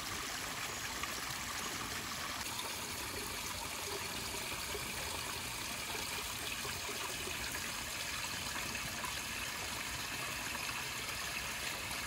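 Small woodland creek trickling over a rock ledge in thin falls into a shallow pool, a steady even splashing.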